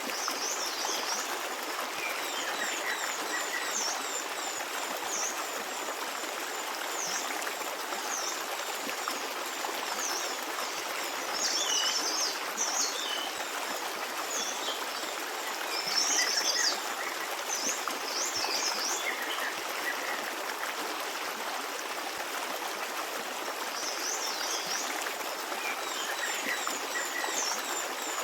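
A small stream running steadily over stones, with songbirds chirping in short, high calls throughout, busiest in two spells around the middle.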